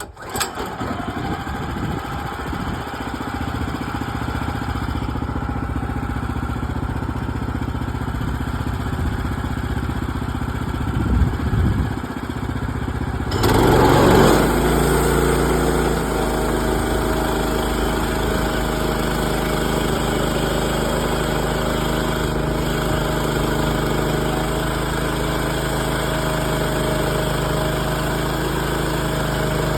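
Small gasoline engine of a Woodland Mills HM130 Max portable sawmill, pull-started by hand, catching right at the start and running. About halfway through its note changes abruptly with a brief surge, then it runs on steadily.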